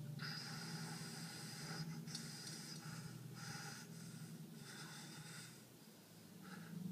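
A man's heavy, strained breathing while pressing a very heavy barbell: about four long forced breaths, then a short one near the end, over a low steady hum.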